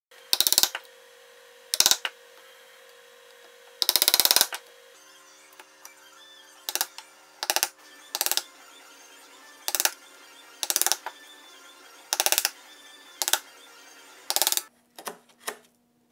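Brass mallet striking a chisel to chop out dovetail waste in walnut: about a dozen sharp, separate knocks roughly a second apart, one longer cluster of blows near the four-second mark. Faint background music runs underneath.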